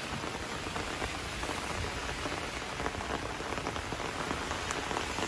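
Rain falling steadily, an even patter of drops.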